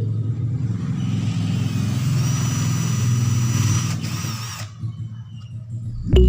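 Small electric motor running steadily with an airy hiss, then switched off about four and a half seconds in and winding down to a stop.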